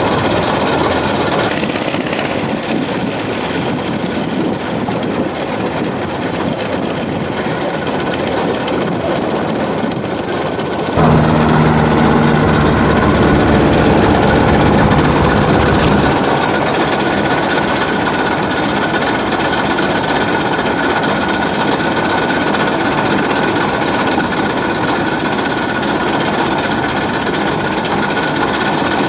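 A boat's engine running steadily and loudly. About eleven seconds in it turns louder and lower for about five seconds, then settles back.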